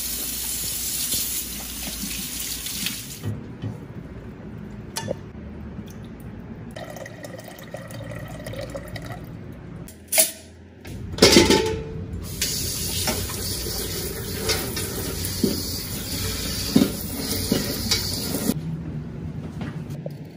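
Kitchen faucet running into a sink while hands are washed under it, cutting off about three seconds in. Later come a few sharp knocks from a metal steamer basket being set into a pot, then another long stretch of running water.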